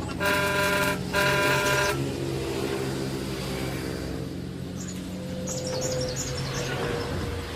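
A motor vehicle's horn sounds twice, two short honks of under a second each, over a running engine that fades away about five seconds in.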